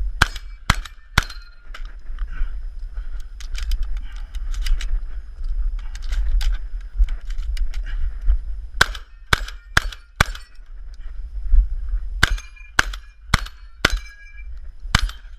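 Shotgun fired in rapid strings at a match stage: three shots about half a second apart right at the start, then four around 9 to 10 s, five from about 12 to 14 s, and one more near the end, with fainter clicks in between and a steady low rumble underneath.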